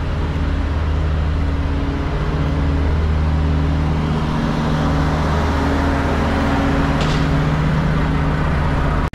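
Volvo VNL semi truck's diesel engine idling steadily, with a short hiss about seven seconds in.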